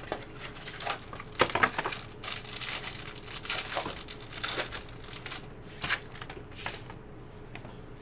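Crinkling and tearing of trading-card pack wrappers being ripped open, with cards handled, in irregular crackles and snaps that die down near the end.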